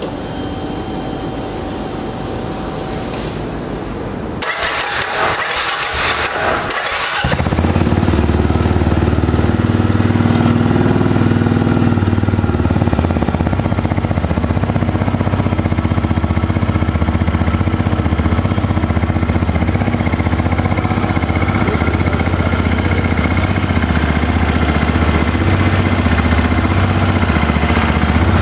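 Benelli Imperiale 400's 374cc air-cooled single-cylinder engine being started: the electric starter cranks for about three seconds, then the engine catches about seven seconds in and settles into a steady idle, heard at the exhaust.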